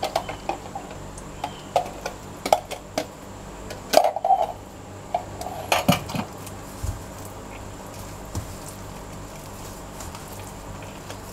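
Stainless steel mixing bowl knocking and clinking as bread dough is mixed by hand, with a plastic measuring jug and spoon being handled. Scattered clinks come through the first six seconds, the loudest around four and six seconds in, and are fewer after that.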